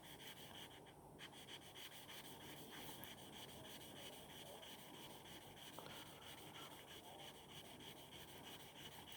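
Faint rubbing of a stainless steel broadhead blade stroked along fine 2000-grit wet-and-dry sandpaper, honing its bevel.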